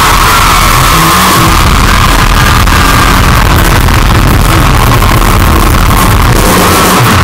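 Live band music played loud through a concert PA and picked up by a phone in the audience, so loud that the recording stays pinned near full level and is overloaded.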